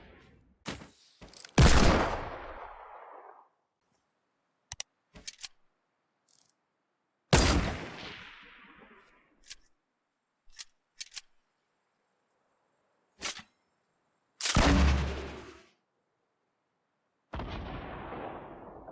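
A string of separate gunshot sound effects, each a sharp report followed by a fading echo tail, with a few short sharp clicks between them and dead silence in the gaps. The biggest shots come about two, seven and a half and fifteen seconds in, the one near fifteen seconds deeper and longer than the rest.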